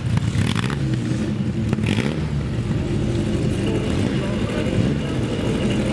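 Racing car engine running, its pitch rising and falling as it is revved.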